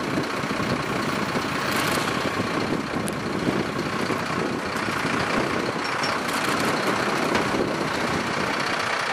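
Truck engine running steadily, with a few brief louder noises about two seconds and six to seven seconds in.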